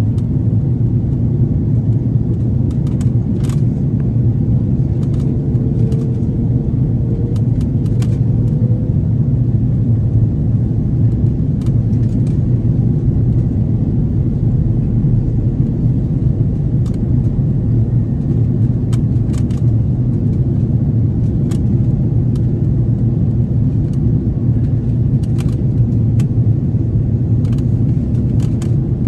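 Steady low rumble of airliner cabin noise, jet engines and rushing airflow heard from a window seat, with scattered faint clicks and a faint tone rising briefly a few seconds in.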